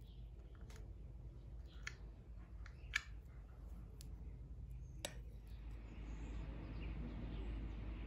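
A metal spoon clinking against a ceramic bowl of oatmeal a few times, the sharpest click about three seconds in. After about six seconds a steady background hiss of room or outdoor ambience takes over.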